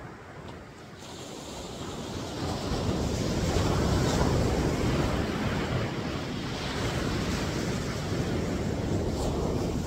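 Ocean surf: a wave breaking and washing up the beach, swelling over the first few seconds and then slowly easing, with wind on the microphone.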